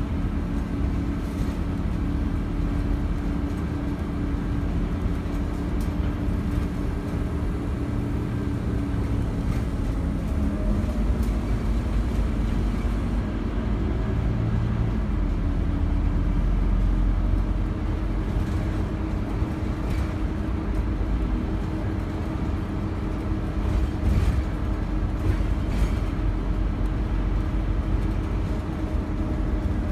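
Inside a Scania OmniCity single-deck bus under way: the diesel engine and driveline drone steadily, the engine note shifting a few times as the bus changes speed. A few light rattles come near the end.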